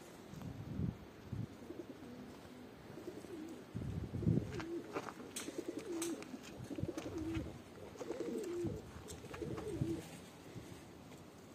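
Domestic pigeons cooing close by: a run of low, warbling coos starting about four seconds in, with a few light clicks between them.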